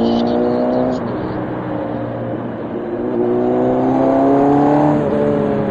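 Motorcycle engine accelerating through the gears, with a steady rush of wind. Its pitch rises and drops at a shift about a second in, then climbs steadily for a couple of seconds and drops again at another shift near the end.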